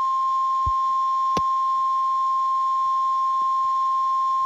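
NOAA Weather Radio 1050 Hz warning alarm tone: one steady, unbroken tone, the signal that a warning broadcast is about to follow. A faint click is heard about a second and a half in.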